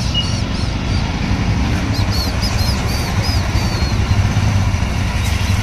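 Several Royal Enfield Himalayan single-cylinder motorcycle engines idling together in a steady low rumble.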